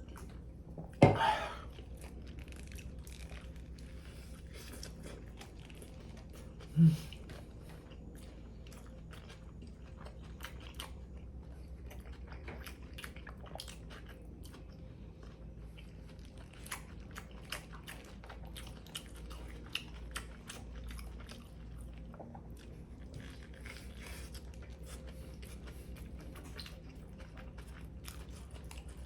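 Close-up chewing and biting of a toasted submarine sandwich: small crunches and wet mouth clicks, with two brief louder sounds about a second in and near seven seconds.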